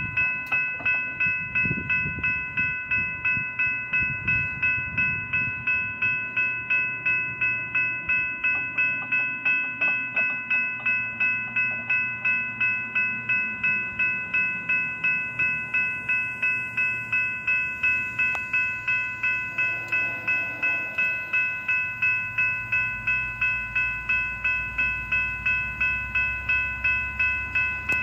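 Railroad crossing warning bell ringing in rapid, even strokes, about two and a half a second, while the crossing signals are active.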